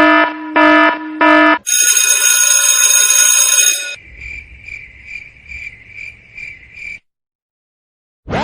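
A run of stock sound effects: three short buzzy beeps, then a harsh high-pitched buzz lasting about two seconds, then a high chirp pulsing a little over twice a second for about three seconds, which cuts off into silence.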